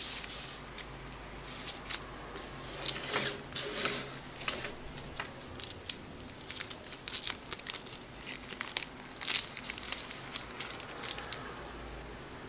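Thin plastic protective wrap on a new smartphone crinkling as it is handled, mixed with paper leaflets rustling. It comes as an irregular string of short crackles all the way through.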